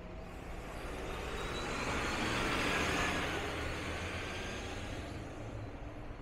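A motor vehicle driving past on a city street: tyre and engine noise swells to its loudest about three seconds in, then fades away.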